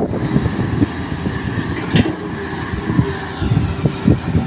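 Crawler excavator's diesel engine running under load while its hydraulics swing and extend the arm, with a short clank about two seconds in.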